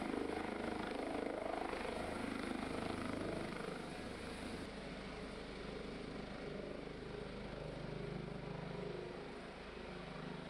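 Rescue helicopter in flight, a steady drone of rotor and turbine that fades a little as it flies away.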